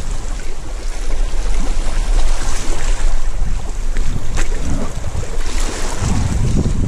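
Small sea waves washing in over rocks and shingle at the water's edge, with wind buffeting the microphone.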